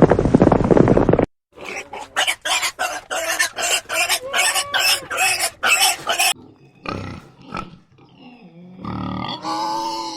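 An animal calling: a fast, regular run of short, harsh calls, about three a second, for several seconds, then after a pause a few longer calls with a clear pitch near the end.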